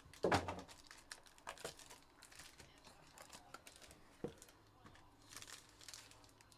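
Hands opening a trading-card box and crinkling and tearing its foil wrapping, with a sharp click a little after four seconds in.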